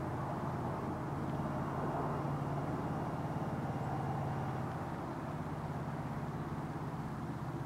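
A steady low engine hum with a fine, rapid pulsing, easing off slightly after about five seconds.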